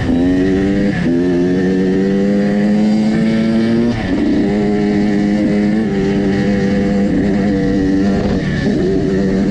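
Dirt bike engine accelerating and shifting up: the pitch climbs, drops at a gear change about a second in and again about four seconds in, then runs at a fairly steady pitch.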